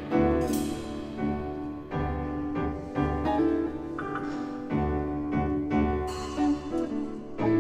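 Instrumental music led by piano, playing chords at a moderate, even pace.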